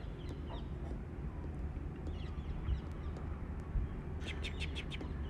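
Small birds chirping in a quick series of short high notes about four seconds in, over a steady low outdoor rumble.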